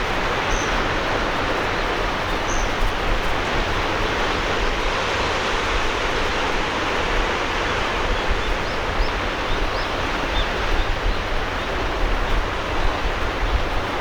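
Sea surf washing on the shore, a steady dense hiss of waves, with a few short high chirps over it.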